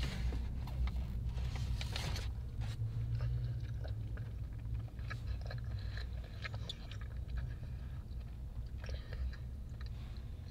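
A person chewing and crunching food close to the microphone, in scattered short crisp bites, over a steady low hum.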